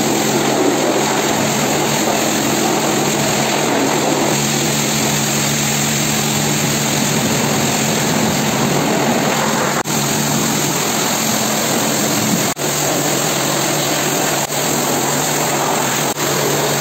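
High-pressure washer spraying water into a car's engine bay, rinsing off engine-cleaning chemical. The steady spray hiss runs over the pump's hum, with a few brief breaks in the second half as the trigger is let go.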